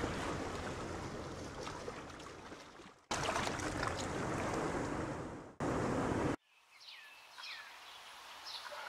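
Rushing, splashing water noise from fish being released, cut off abruptly a few times. After about six and a half seconds it gives way to quieter outdoor ambience with a few short bird chirps.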